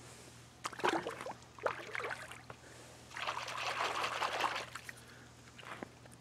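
Lake water splashing as a smallmouth bass is released by hand at the shoreline: two short splashes, then a longer, louder stretch of splashing from about three seconds in.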